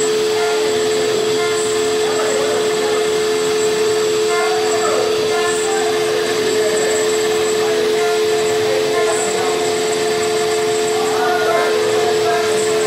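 OMNI 1325 CNC router's spindle running at a steady high whine as its engraving bit cuts lettering into a wooden board.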